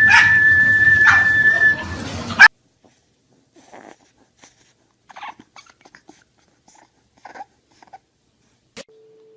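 A dog whines in a high, steady tone over louder noise for about two seconds, cut off by a sharp knock. Then come only very faint scattered clicks, and a low steady tone starts near the end.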